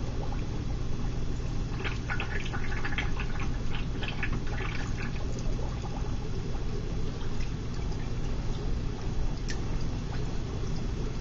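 Water splashing and trickling in a fish tank as hands move and work underwater, over a steady low hum; the splashing is busiest a couple of seconds in and then settles.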